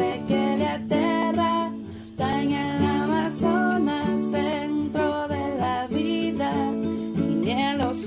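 A song with acoustic guitar and a singing voice.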